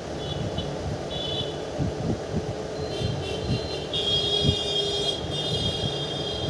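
Passenger train running, a low steady rumble with irregular thumps, and high thin whining tones that come and go, strongest from about four seconds in.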